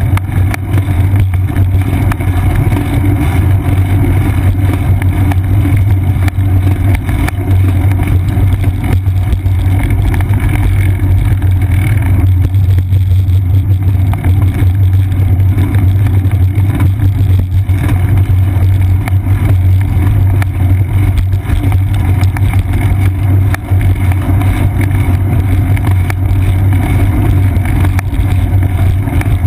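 Steady, loud low rumble of riding noise picked up by a seat-post-mounted GoPro Hero 2 in its housing on a moving bicycle: road vibration and wind buffeting the microphone.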